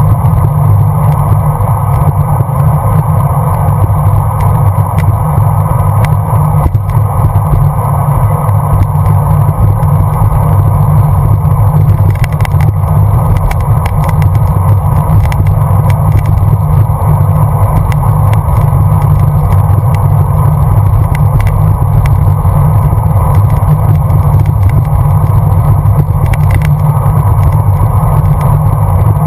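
Steady, loud wind buffeting and road rumble picked up by a GoPro on a moving road bicycle, with a few brief ticks around the middle.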